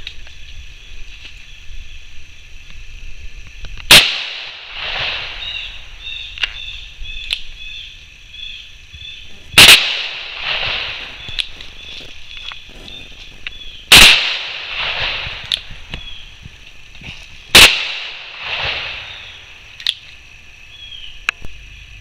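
Four shots from a Ruger Super Redhawk .44 Magnum revolver, about four seconds apart, each followed by an echo about a second later.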